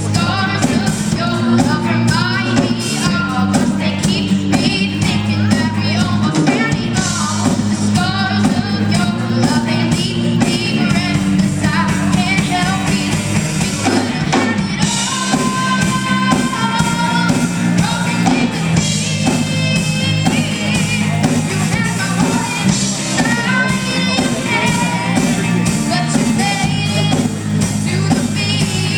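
A rock band playing a song: a singer over drum kit and guitar.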